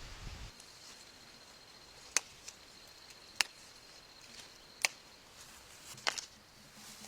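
Four sharp clicks, about a second and a half apart, over faint background hiss, with a thin steady high tone in the first part.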